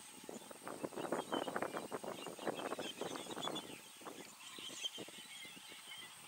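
Irregular rustling and crackling, busiest in the first few seconds, with small bird chirps above it and a faint steady high tone.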